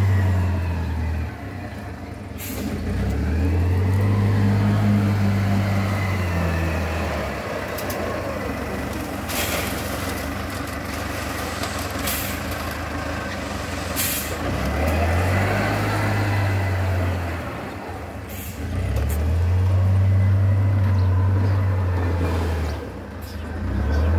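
Engine of an Agrimac 930 loader revving up and dropping back several times as it works its bucket, loading gravel into a pickup dump truck's steel bed. Several sharp clanks are heard along with it.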